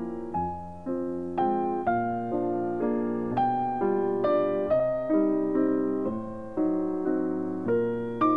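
Slow, gentle solo piano music: single notes and chords struck about twice a second, each left to ring and fade.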